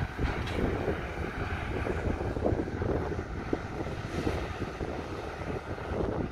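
Caterpillar hydraulic excavator's diesel engine running steadily as it digs, a continuous low drone with scattered irregular knocks.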